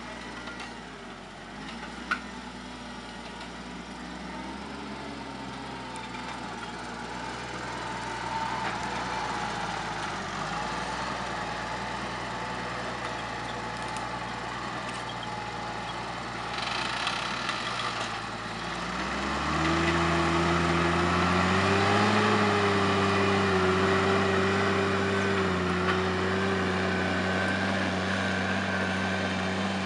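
Deutz-Fahr M620 tractor's diesel engine running while the tractor works with a reversible plough, its note steady. About two-thirds of the way through the engine becomes much louder as the tractor pulls the plough through the soil close by. There is a single sharp click about two seconds in.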